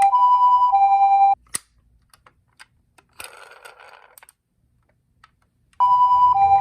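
Toy ambulance's electronic two-tone hi-lo siren, the Japanese ambulance "pee-po", alternating between a high and a low tone about every half-second. It cuts off suddenly about a second and a half in; after a click and a brief rustle it stays almost silent, then the siren starts again near the end with a lower third tone joining in.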